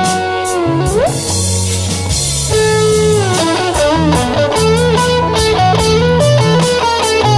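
Overdriven electric guitar lead from a Fender Stratocaster through a Joyo MA-10E 10-watt practice amp, distorted by the amp's own overdrive channel, with delay and reverb. It plays held notes with vibrato, with a quick upward slide about a second in, over a backing track of bass and drums.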